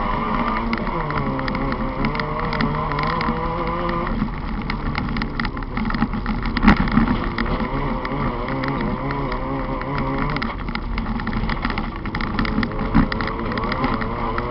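VW Polo dirt-track race car's engine heard from inside the cabin, running hard with its pitch rising and falling as it changes gear and lifts off, over a rush of tyre and gravel noise. A sharp knock comes about halfway through and another near the end.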